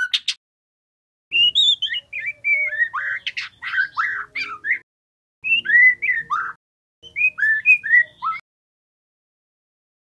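Juvenile male white-rumped shama singing: quick runs of whistled notes sliding up and down, in three phrases with short gaps between them, stopping for the last second and a half. It is the practice song of a young bird still learning to sing.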